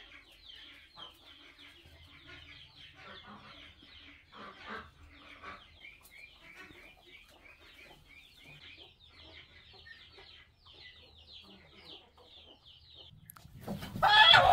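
Chickens clucking, a steady run of many short, quick calls. A sudden much louder burst comes about a second before the end.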